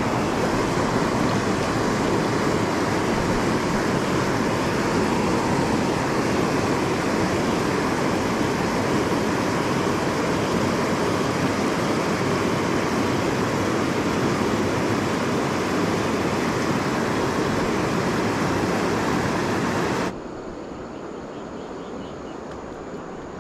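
Water rushing steadily over a low weir, a constant white-water noise. Near the end it cuts off abruptly to a much quieter background.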